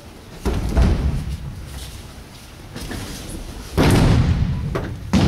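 Judoka being thrown onto judo mats: four heavy thuds of bodies landing on the mats, with the slap of breakfalls, about half a second in, about a second in, near four seconds in and near the end.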